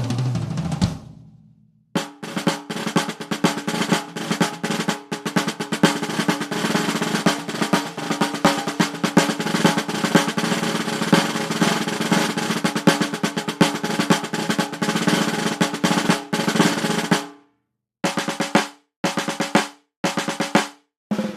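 Drum roll sound effects. One long, fast, continuous roll runs from about two seconds in to about seventeen seconds, then three short rolls of under a second each follow near the end.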